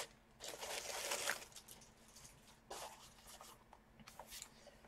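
Plastic protective sleeve rustling and crinkling as a laptop is slid out of it, in a longer stretch over the first second and a half and a shorter rustle near the middle, with small crackles between.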